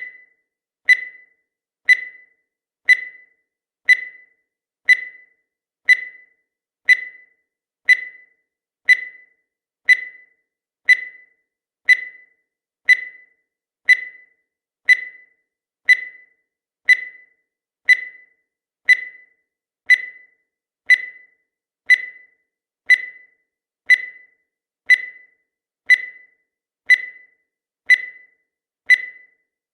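Countdown timer beeping once a second: a short, high beep that fades quickly, repeated evenly about thirty times.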